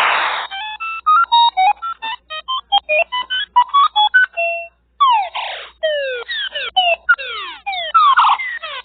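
Synthetic electronic sound effects: a fast run of short beeps jumping between pitches, then, after a brief pause about halfway through, a quick series of falling electronic chirps.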